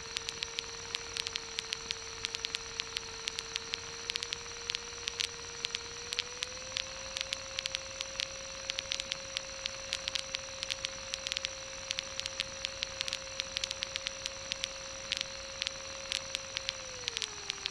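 Cockpit intercom audio from a Bushcat light sport aircraft on final approach: a steady engine whine steps up in pitch about six seconds in and drops near the end. It sits over a constant hiss and dense, irregular crackling static clicks.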